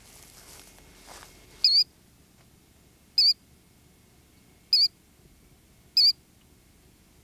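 Killdeer calling: four short, sharp, high notes with a slight waver, spaced about a second and a half apart, the first about a second and a half in.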